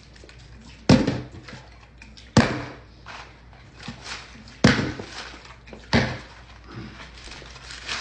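Four sharp knocks, irregularly spaced about one to two seconds apart, each with a brief decaying tail.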